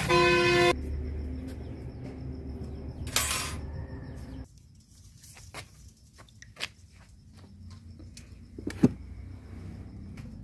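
A short, loud animal call at the very start. Then live eels splash and wriggle in water in a steel bowl as hands stir them, with scattered small clicks and one sharp knock near the end.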